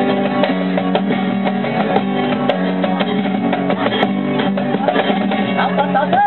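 Two flamenco guitars playing together, with quick plucked and strummed notes. A man's voice starts to sing near the end.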